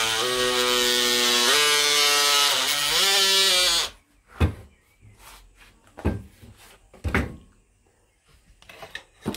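Electric multi-tool buzzing as it cuts a piece off the radiator's plastic lip, its pitch stepping up about one and a half seconds in and dipping and recovering near three seconds, then switching off about four seconds in. A few scattered knocks follow as the tool and radiator are handled.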